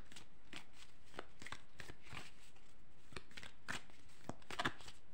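Round tarot deck being shuffled by hand: a string of short, irregular card clicks and snaps, a few a second, with a louder cluster about four and a half seconds in.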